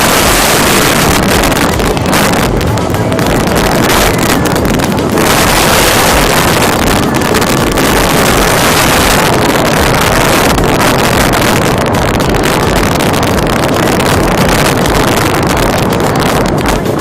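Loud wind noise rushing and buffeting over the microphone of a moving vehicle, mixed with the rumble of driving.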